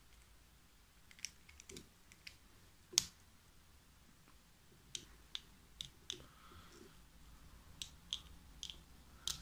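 Scattered small plastic clicks from the pieces of a ShengShou magnetic speed cube being handled and taken apart. The loudest click comes about three seconds in.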